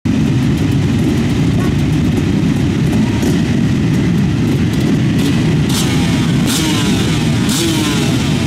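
A full line of motocross bikes running at the start gate, a dense low engine rumble; about halfway through, many engines start revving, their pitches rising and falling over one another.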